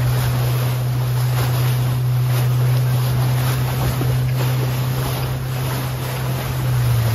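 Motorboat engine running steadily at cruising speed, a constant low drone, with the rush of water along the hull and wind on the microphone.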